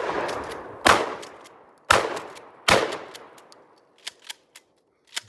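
Four gunshots fired in quick succession, about a second apart, each echoing away, followed by a few light clicks.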